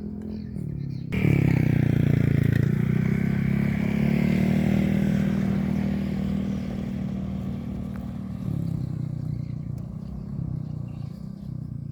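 An engine running, suddenly much louder about a second in, with its pitch shifting in steps a couple of times as it goes.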